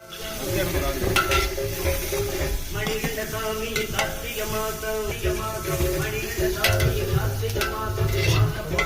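Food sizzling as it is stirred in a frying pan, with sharp clicks of the spoon against the pan, under background music with a melody.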